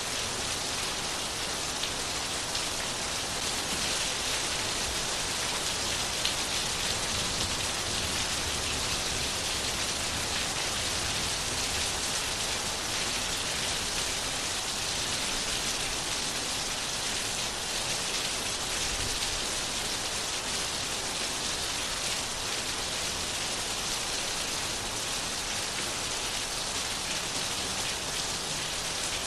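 Steady rain falling and pattering on a surface, an even hiss strongest in the upper range, with no change in intensity.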